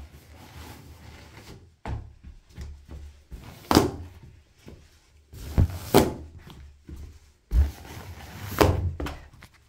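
Latex balloons bursting under the studs of football boots: several sharp pops, the loudest about four, six and nine seconds in, with duller thuds of the boots stamping in between.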